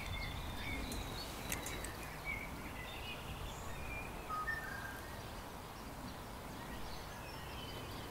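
Outdoor rural ambience: steady low background noise with faint, scattered bird chirps and a few small clicks.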